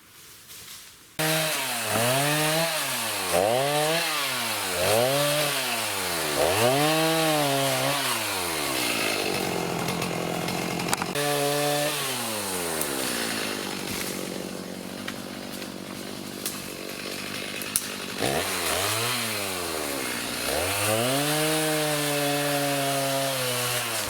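Two-stroke chainsaw starting up about a second in and revving up and down about once a second, then running at a lower, steadier pitch under load while cutting through a storm-downed tree, then revving again near the end.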